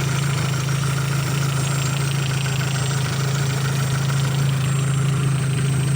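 Opel Zafira's 1.8 Z18XE four-cylinder engine idling steadily after a hydraulic lifter repair; the lifters no longer knock.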